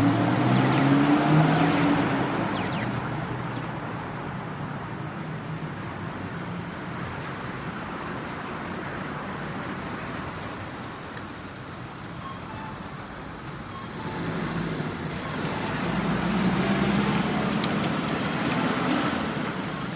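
Road traffic at a crossroads: a vehicle passes at the start, the traffic dies down to a steady hum, and another vehicle passes in the second half. A few faint short beeps from a pedestrian crossing signal sound now and then under the traffic.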